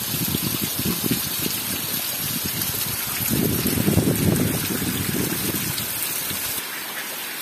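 Heavy rain falling, with runoff water gushing and splashing. The splashing is loudest around the middle, and its low part drops away near the end while the rain hiss goes on.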